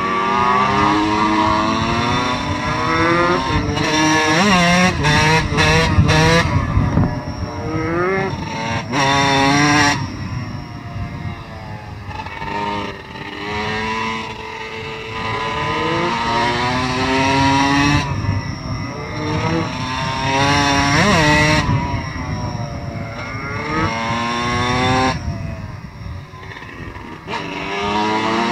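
Dirt bike engines under hard throttle, heard from on board one of the bikes. The pitch climbs steeply and drops back at each gear change, over and over.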